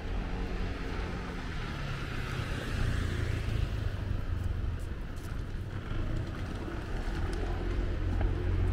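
Street traffic: passing vehicles with a low engine rumble, swelling about three seconds in and again near the end.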